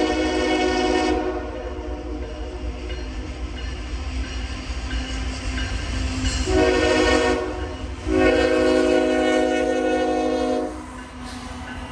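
Multi-chime air horn of a CSX GE ES44AH freight locomotive sounding the grade-crossing signal: a blast that ends about a second in, then a short blast and a long blast, over the steady low rumble of the train.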